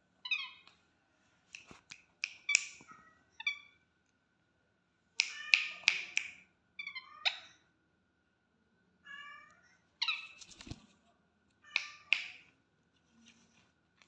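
Young rose-ringed (Indian ringneck) parakeet giving short, repeated raspy begging calls toward an offered hand, in about nine bouts, the loudest about five to six seconds in.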